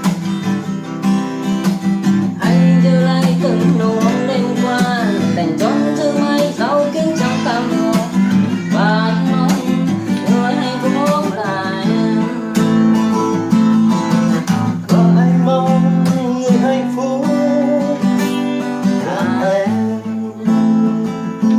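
Acoustic guitar music: strummed chords under a melody line that slides between notes, the instrumental ending of a Vietnamese pop ballad.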